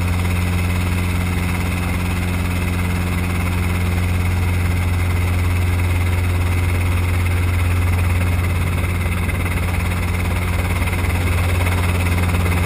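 Light training helicopter heard from inside the cockpit while hover-taxiing: a steady drone of engine and rotor, with a strong low hum and its overtones.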